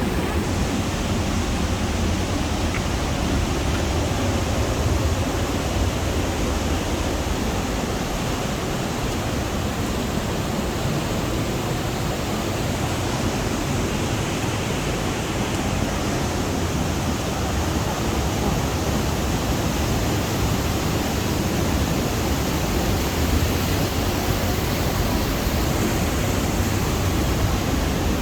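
Waterfall pouring down in a loud, steady rush of water that does not let up.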